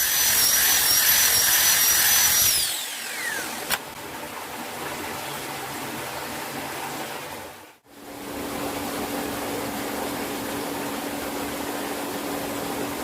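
A high-speed power tool running with a high-pitched whine, which winds down with a falling pitch about three seconds in. A single click follows, then a quieter steady mechanical noise. After a brief gap near the middle, a steady noise with a low hum continues.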